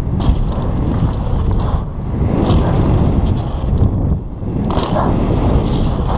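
Wind rushing over a helmet camera's microphone while a downhill mountain bike rides fast down a dirt trail, with tyre rumble on the dirt and several sharp clacks from the bike.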